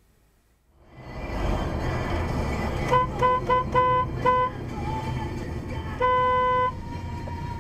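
Car horn sounded in five short toots and then one long blast, over steady road noise from a car driving at highway speed: a warning to a pickup truck pulling out across the road ahead.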